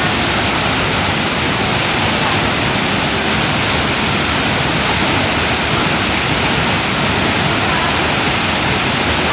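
Waterfall rushing: a loud, steady roar of falling water that holds level throughout.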